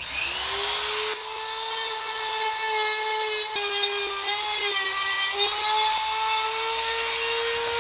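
Dremel rotary tool spinning up to speed with a high whine and running steadily while it trims a scribed edge on a masonite overhead panel. Its pitch sags for a couple of seconds in the middle as the bit bears into the cut.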